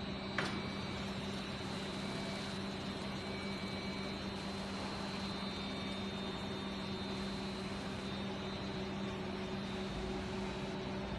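Flaskless green sand molding machine and its chain plate line running: a steady machine hum over a noisy factory background, with one short metallic clank about half a second in.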